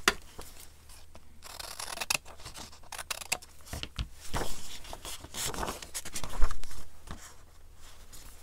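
Scissors cutting a sheet of book paper, in short snips with sharp clicks, amid rustling of the page as it is handled.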